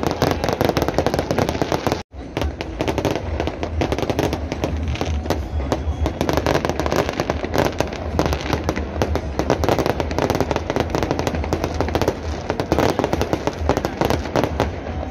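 Aerial fireworks display: many shells bursting at once in rapid, overlapping bangs and crackles, with a momentary drop-out about two seconds in.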